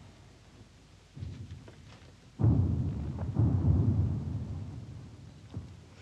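Deep rumbling booms of distant artillery fire: a fainter one about a second in, then a heavy one about two and a half seconds in that rolls on and slowly fades.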